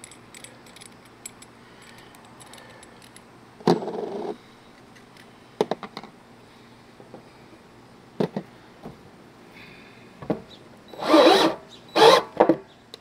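Faint clicks of a brass fitting being handled, and a short clunk about four seconds in. Near the end a cordless drill runs in two short bursts as its bit bores a hole through the plastic wall of a rain barrel. These drill bursts are the loudest sound.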